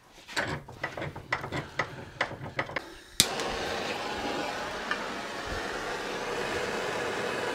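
Clicks and knocks of a part being clamped in a bench vise, then about three seconds in a heat gun switches on and runs with a steady rushing hiss, heating the battery board's solder tabs loose.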